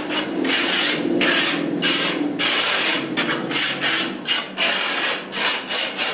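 Steel putty blade scraped over a rough cement-plastered wall in repeated rasping strokes, quickening to about two a second in the second half: the wall surface being cleaned before the first coat of putty.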